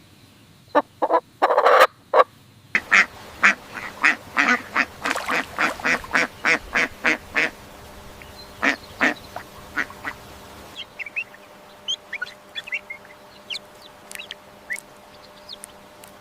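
Duck quacking in a quick series of calls, about three or four a second, trailing off into a couple of single quacks. Later, faint short high chirps of small birds take over.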